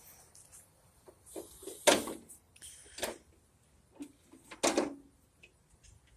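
A toddler making mouth sound effects: a few short, noisy, breathy bursts with pauses between them, the loudest about two seconds in and again near five seconds.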